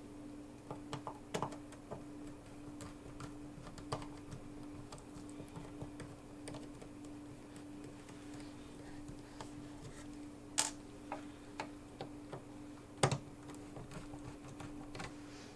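Irregular small clicks and taps of hand tools and hard plastic parts being worked while a quartz wall clock is taken apart, with two sharper clicks in the second half. A steady faint hum runs underneath.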